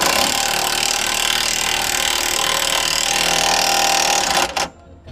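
Cordless power drill running continuously, driving a suspension bolt tight on a car's new lower control arm, then stopping abruptly about four and a half seconds in.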